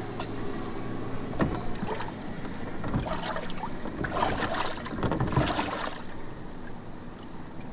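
A low boat-motor hum fades out over the first second or so. Then water splashes and clattering come about three to six seconds in, as bass are handled in the boat's livewell.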